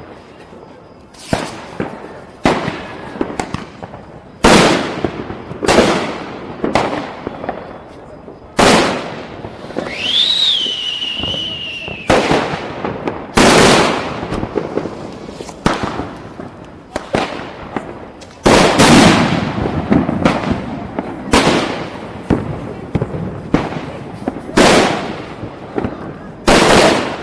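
Diwali firecrackers bursting: a string of sharp bangs one to a few seconds apart, each dying away, some much louder than others. About ten seconds in, a whistle rises quickly and then sinks slowly for about two seconds.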